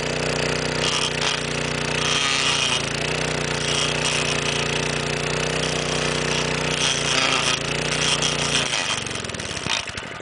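1961 McLane edger's 2 HP Briggs & Stratton engine running steadily, then cutting out near the end and coasting to a stop: it stalls, low on gas.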